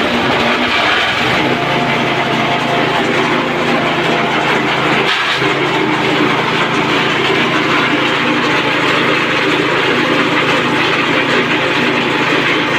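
Grass chopper powered by a 5.5 hp engine, running steadily at speed with its chopping drum turning.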